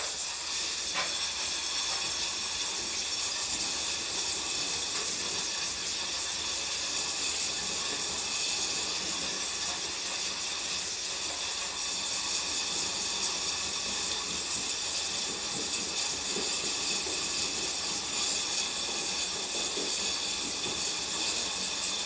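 Water jetting from a hose spray nozzle onto the fins of a wall-mounted air conditioner's indoor unit: a steady hiss.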